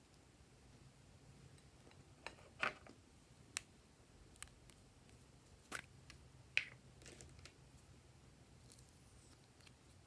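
Glossy slime being worked by hand, giving scattered soft clicks and squelches, about six in the middle of the stretch, over a faint steady low hum.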